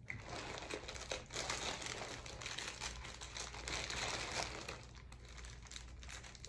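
Plastic mailer bags and packaging crinkling and rustling as hands rummage through them, easing off near the end.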